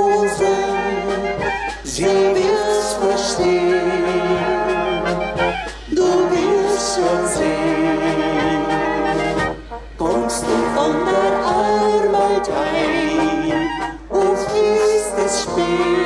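Brass band playing a tune, its phrases breaking off briefly about every four seconds.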